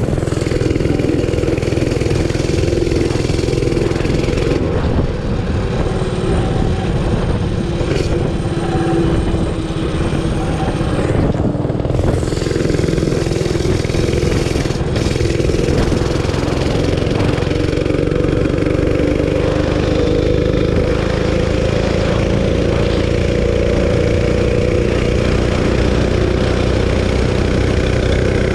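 Realtree RT200 mini bike's 196cc single-cylinder engine, fitted with a Go Powersports stage 1 kit, a custom exhaust and a zip-tied governor spring, running under load as the bike is ridden, with wind on the microphone. The engine note holds steady, then climbs gradually in the second half as the bike picks up speed.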